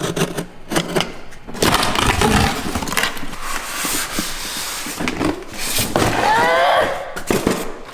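Cardboard box packaging being torn and rustled open, a loud, dense ripping and scraping. Around six seconds in, a child's high voice rises and falls briefly over it.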